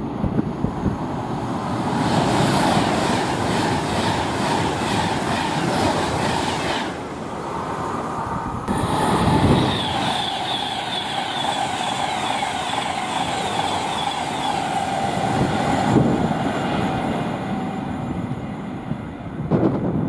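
A train passing close by at speed, with a steady rumble of wheels on rail and a rhythmic clatter in the first few seconds. A held ringing tone from the wheels runs through it.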